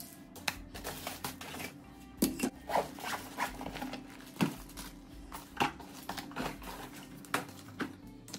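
Toiletries and packaging being rummaged and sorted in a wooden drawer: irregular clacks, knocks and rustles, with a few sharper knocks standing out.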